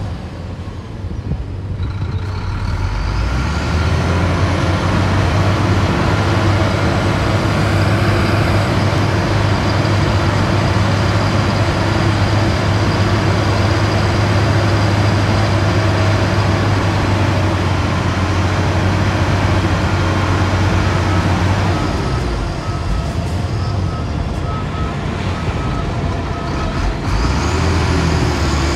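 Heavy earthmoving machinery's diesel engine working under steady load, with a constant low drone that eases a little about two-thirds of the way in. Near the end a short beeping tone repeats steadily for a few seconds, like a reversing alarm.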